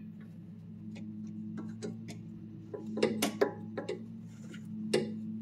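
Scattered metal clicks and clanks of a steel pry bar knocking against the sway bar and the old sway bar end link as the link is levered out past the sway bar, the sharpest clanks a little past halfway. A steady low hum runs underneath.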